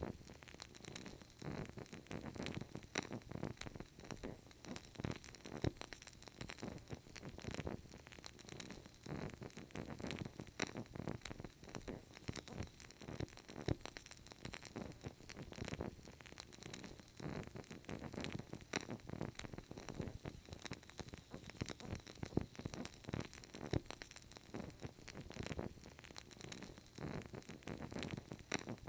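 Burning candle crackling: a dense, irregular stream of small crackles and pops from the flame and wick, over a faint hiss.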